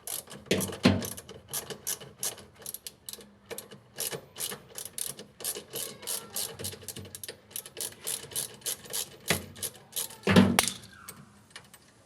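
Ratchet wrench with a 10 mm socket clicking steadily, several clicks a second, as it turns out a washing machine motor's mounting bolt, with a louder knock about ten seconds in.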